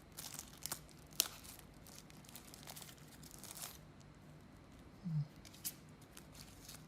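Packaging being opened by hand: rustling, crinkling and tearing, with scattered small clicks and one sharper click about a second in.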